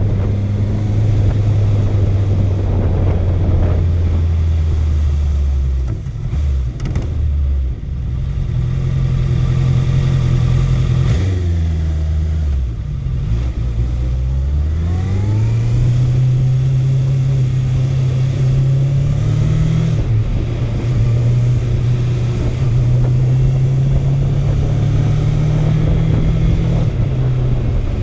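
Honda CB650F's inline-four engine running at a steady cruise, with a few gear changes: the pitch drops as it slows down about halfway through, then rises as it accelerates again and settles at a higher steady note.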